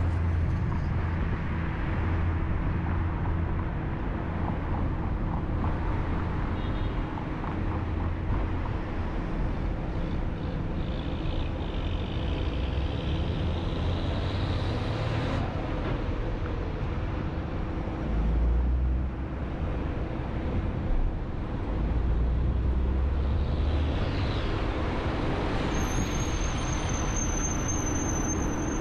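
Road traffic heard from a moving car: steady tyre and engine rumble, with a city bus running close alongside. A few heavier low rumbles swell and fade in the second half.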